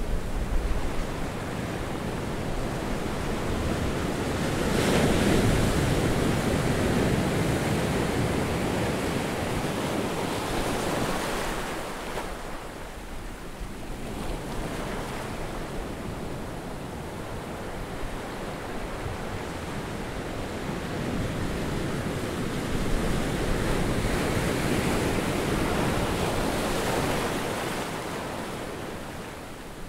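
Surf washing onto a sandy beach: a steady rush that swells and eases in slow surges, loudest about five seconds in and again near the end.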